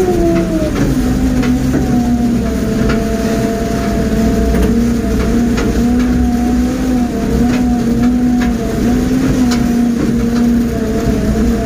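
Mobile crane's diesel engine running while the crane drives on a rough dirt road, heard from inside the cab; the revs drop in the first second, then hold steady with a slight waver. Scattered clicks and knocks run through it.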